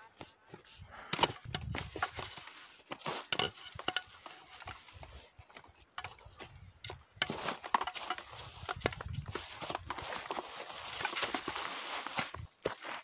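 Scattered knocks, clicks and rustles of juggling clubs being handled and of someone scrambling over rock and dry undergrowth, with a longer stretch of close rustling from about seven seconds in.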